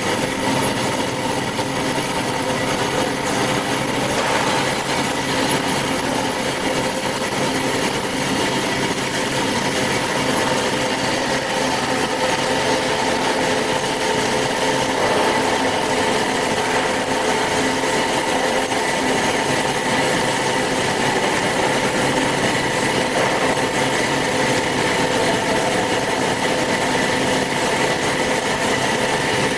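Band saw running steadily: an even mechanical noise with a constant whine.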